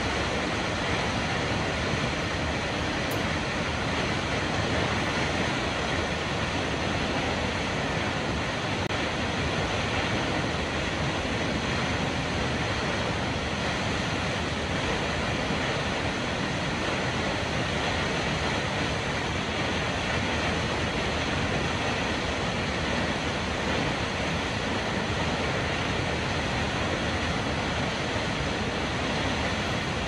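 Kegon Falls, a tall plunge waterfall, sending down a heavy, unbroken rush of falling water: a steady, even roar with no changes.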